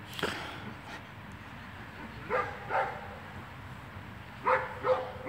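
A dog barking: short, sharp barks, mostly in pairs.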